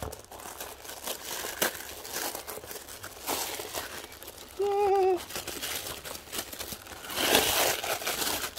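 Tissue paper crinkling and rustling as a wrapped gift is unwrapped by hand, loudest near the end. A short hum of voice comes about halfway.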